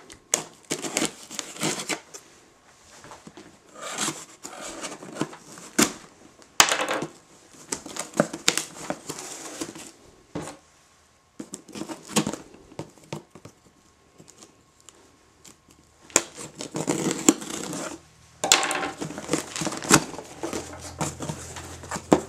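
Knife cutting through packing tape on a cardboard shipping box, with tape tearing and cardboard scraping and rustling in irregular bursts and a few sharp clicks.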